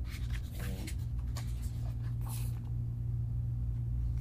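Pages of a large glossy photo booklet being handled and turned: several short paper rustles and swishes in the first two and a half seconds, over a steady low hum.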